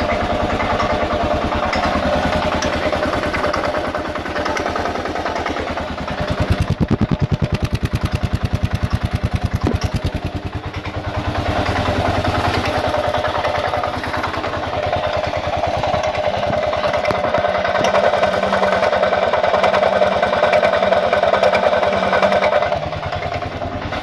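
Kawasaki KLR650's single-cylinder engine running with a clacking, grinding noise whose cause the owner cannot identify. It grows louder for a few seconds about six seconds in, then settles back.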